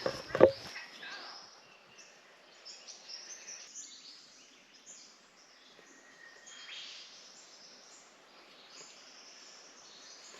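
Rainforest ambience: many birds chirping and calling over a faint steady hiss, with a brief louder sound just after the start.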